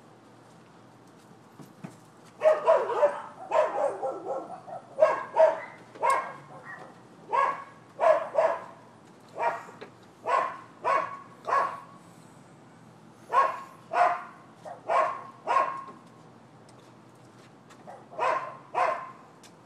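A dog barking repeatedly: a long run of short, sharp barks, then a pause and two more barks near the end.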